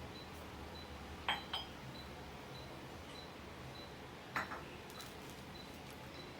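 Small hard objects clicking and clinking as they are handled: two quick clinks about a second in and one more, with a short ring, about four seconds in, over a faint steady hum and a faint regular ticking.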